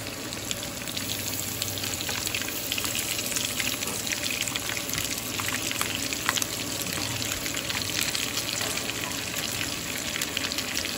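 Pork rolls and tofu frying in shallow hot oil in a wok: a steady sizzle with many small crackling pops, as they are re-fried to heat through.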